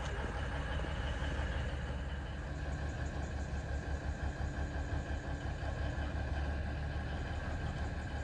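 Diesel locomotive engine running steadily with a low hum, heard from inside the cab.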